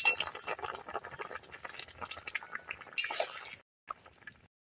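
Curry gravy with fish, taro and potatoes boiling in an open wok, a dense run of bubbling and popping that cuts off suddenly about three and a half seconds in.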